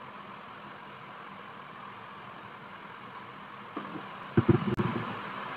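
Steady background hiss, broken about four and a half seconds in by a short cluster of knocks and handling noise, the loudest sound here, as a hand reaches toward a stainless steel plate on a wooden table.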